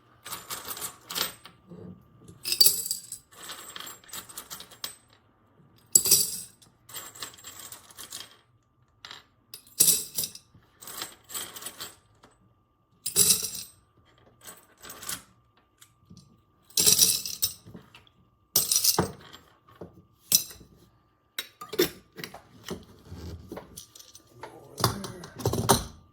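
Spent brass cartridge cases (.40 calibre) clinking and jingling as handfuls are dropped into a jar, in a series of short bursts every second or few.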